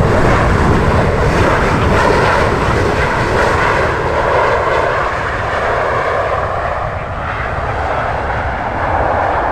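Jet airliner engines roaring steadily as the aircraft passes close by on its landing approach. The roar is loudest in the first few seconds and eases slightly after that.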